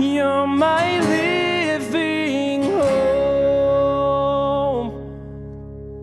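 A man sings the closing line of a worship song and holds the last note until almost five seconds in. The accompaniment then rings on alone as a low held chord, fading.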